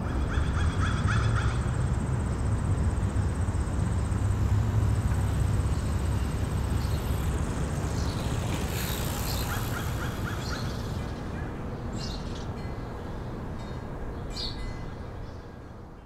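Quiet residential street ambience: a low steady city rumble of distant traffic with birds calling over it, a run of calls near the start and again about halfway through, and a few short chirps near the end as the whole bed fades down. A thin, steady high tone sits over it for the first several seconds.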